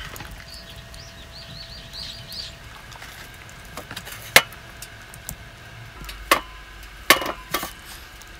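Small poodle eating dry kibble from a stainless steel bowl: a few sharp crunches and clinks against the metal, the loudest about four seconds in and several more near the end. A short run of high chirps comes early on.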